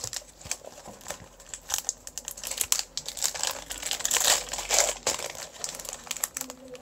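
Foil Pokémon trading-card booster pack wrapper crinkling in the hands as it is torn open: a run of irregular crackles.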